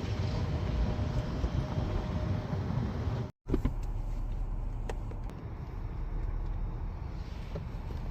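Car running, a steady low rumble of engine and road noise, broken by a brief dropout a little over three seconds in, with a few faint clicks after it.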